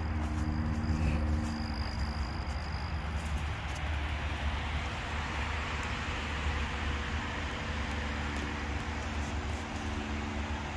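Electric floor fan running: a steady low rumble with an even rushing of air that grows stronger a few seconds in.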